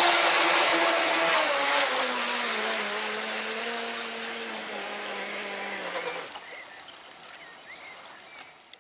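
Brushless electric motor of a radio-controlled catamaran speedboat whining over the hiss of water spray. Its pitch drops and it fades as the boat runs off, and it stops about six seconds in.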